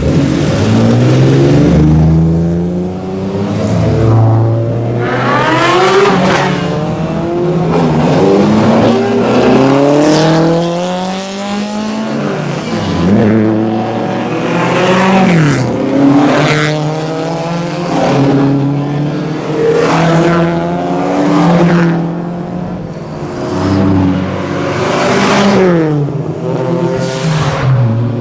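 Several sports cars at full throttle past a race track's main straight, one after another and often overlapping. Each engine climbs steeply in pitch, then drops as it goes by.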